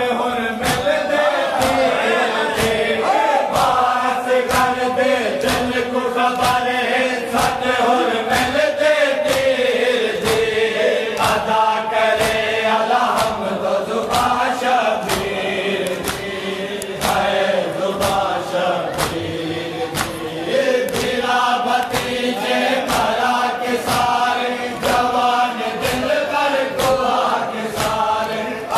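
Men chanting a noha, a Shia Muharram mourning lament, together. Steady rhythmic chest-beating (matam) keeps time at about three strikes every two seconds.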